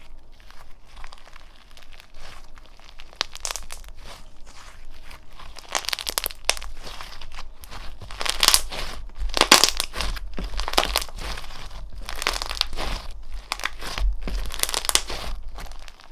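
Slime being squeezed and pressed by hand, giving a dense crackling in repeated surges that get louder about halfway through.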